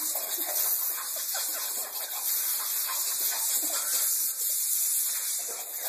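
Compressed air hissing steadily from an air compressor's blow nozzle, a continuous high-pitched hiss.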